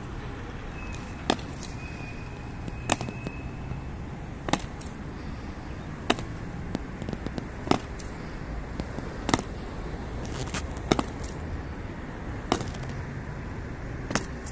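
Honor guards' boots stamping on stone paving in a slow ceremonial high-step march: a sharp stamp about every one and a half seconds, with lighter footfalls between. A steady low background noise runs underneath.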